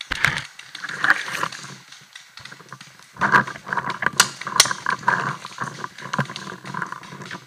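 Hurried footsteps crunching and rustling through dry leaf litter, with gear rattling, as a paintball player moves fast through woodland; two sharp cracks come close together about four seconds in.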